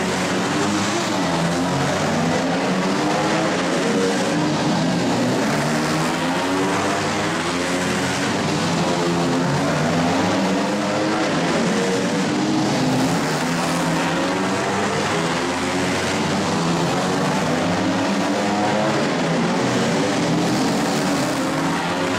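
Several small flat-track racing motorcycles running together, their engines constantly rising and falling in pitch as the riders open the throttle and back off around the short oval.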